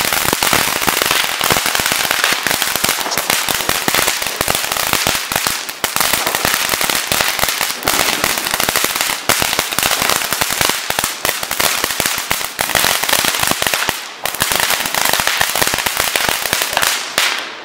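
Ground fountain firework burning, a dense, continuous crackling as it sprays sparks, with a brief lull about fourteen seconds in and dying away near the end.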